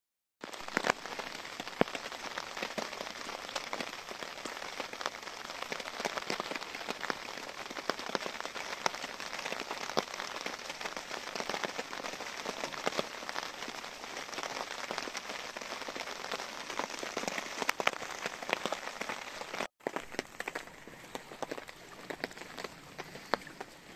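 Heavy rain falling in a downpour, a dense patter of countless drops. After a short break about 20 seconds in, the rain goes on more softly, with scattered drops hitting the tarp overhead.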